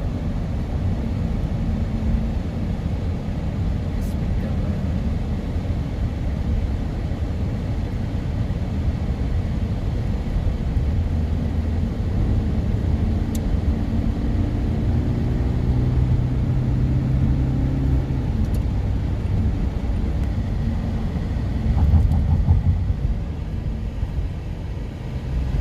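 Steady road noise of a car driving: low tyre and engine rumble heard from inside the car. A steadier hum comes up for a few seconds in the middle, and there is a brief louder swell near the end.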